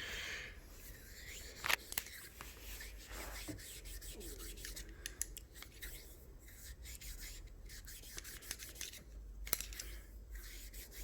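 Faint rubbing and scrubbing of a bore-cleaner-soaked cotton swab being worked through a .45 pistol barrel, with scattered light clicks.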